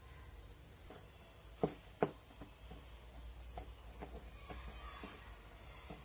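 Metal spoon knocking twice against a glass mixing bowl, about one and a half and two seconds in, followed by a few fainter taps while powdered sugar and egg white are stirred together.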